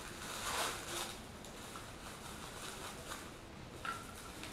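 Bubble wrap and plastic film crinkling and rustling as they are peeled off a small figure by hand. The loudest crinkle comes about half a second in, and a short sharp crackle comes near the end.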